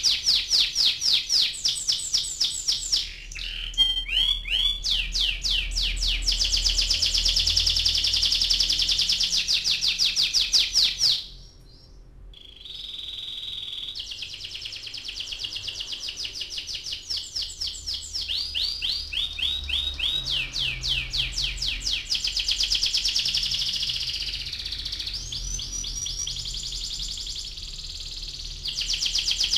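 Domestic canary singing a long rolling song: fast trills of rapidly repeated high notes that change pace and pitch from phrase to phrase. The song drops to a quieter, steadier note for a second or so about eleven seconds in before the trills resume.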